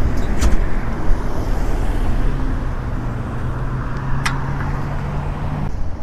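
Road traffic passing close by: cars and a van driving past on a busy road, with a low steady drone joining about two seconds in and a single sharp click near the end.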